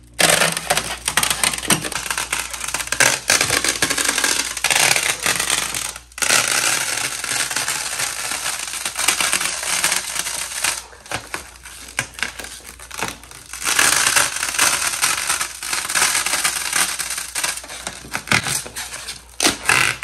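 Clear protective plastic film being peeled off a mini fridge door, crackling and crinkling steadily, with a brief pause about six seconds in.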